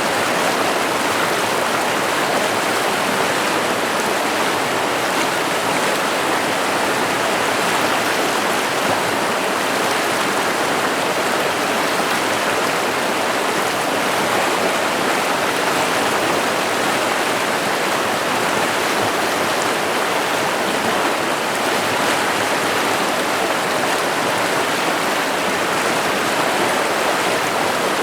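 River water running and splashing steadily over rocks, a continuous rushing sound.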